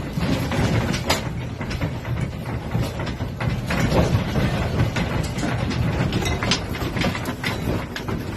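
Low rumbling with continuous rattling and clattering, as of a building and the objects in it shaking during an earthquake.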